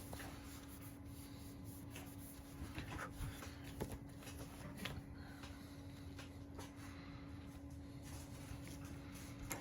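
Faint ticks and light scraping of small repair tools handling the opened phone's parts, a few soft clicks in the middle, over a faint steady hum.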